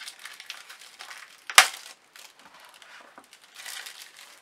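A stack of paper journaling cards being handled and shuffled, with crinkly rustling, one sharp snap about a second and a half in, and a louder rustle near the end as the stack is set down.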